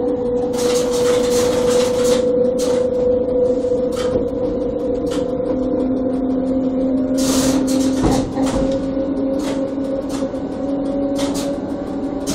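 Riding in the driver's cab of the ABe 4/4 641 electric railcar as it runs along the track: a steady whine from the drive that rises a little in pitch, with a lower second tone joining about halfway through. Irregular sharp clicks and knocks come through over it.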